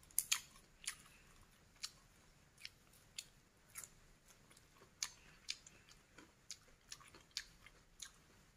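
A person chewing crunchy food with the mouth close to the microphone: faint, irregular crunches and mouth clicks, one to two a second.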